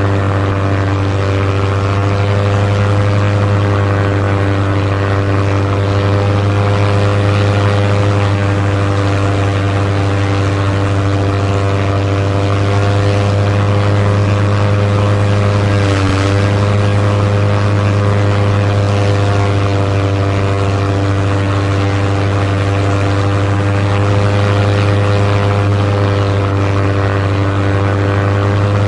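Propeller airplane engine droning at a steady pitch, with a brief dip in pitch about halfway through.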